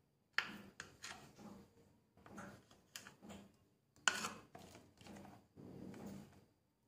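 Serrated kitchen knife sawing through soft boiled wheat-dough farra parcels filled with chana dal on a ceramic plate, in a run of uneven back-and-forth strokes. Two sharper knocks come about half a second in and about four seconds in.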